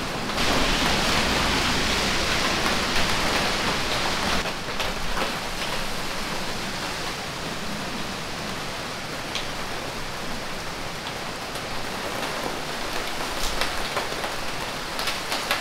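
Heavy typhoon rain pouring steadily, heaviest for the first few seconds and then easing a little, with scattered sharper drips and splashes, more of them near the end.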